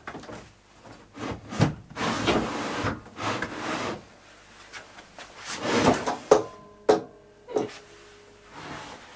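A loose wooden worktop board being lifted and slid across a plywood workbench cabinet: wood scraping and rubbing on wood, with several knocks and a brief ringing clank about six seconds in.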